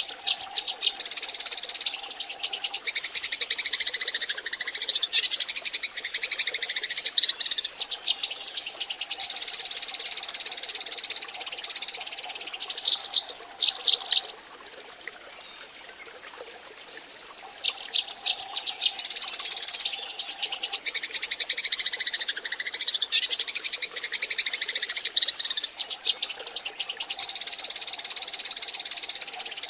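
A flock of Eurasian tree sparrows chattering: dense, rapid, high chirps in two long bouts that break off for a few seconds near the middle.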